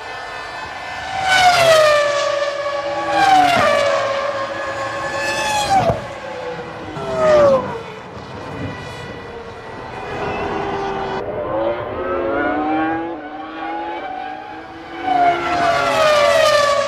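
1999 Formula One cars' V10 engines passing at high revs, about five cars one after another, each engine note dropping in pitch as it goes by.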